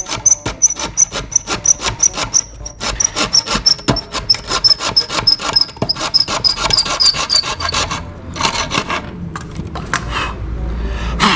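Hand file rasping back and forth on hard plastic, about three to four strokes a second, with a thin high squeak on each stroke, shaving down a battery adapter so it will fit. The strokes stop about eight seconds in, and a short sharp scrape comes near the end.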